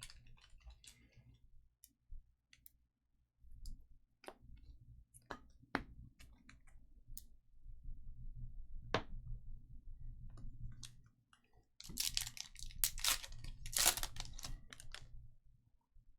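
Trading cards being handled on a table: scattered light clicks and taps, then a few seconds of denser rustling and sliding about twelve seconds in.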